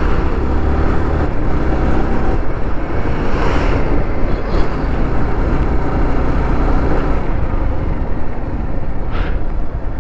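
Sport motorcycle riding at about 50 km/h, engine running under a dense rush of wind and road noise. A heavy truck rumbles close alongside in the first two seconds.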